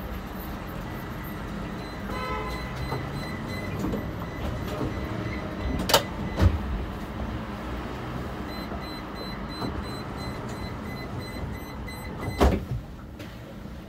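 Inside a standing tram: a steady hum of the vehicle and passing traffic, with a few sharp clicks or knocks about six seconds in and near the end, and faint high beeping tones twice.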